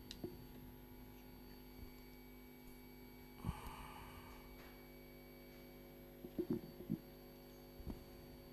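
Steady electrical hum of operating-room equipment, with a few soft clicks and knocks of metal surgical instruments being handled: one near the start, a short cluster about six and a half seconds in, and one near the end. There is a brief rustle about three and a half seconds in.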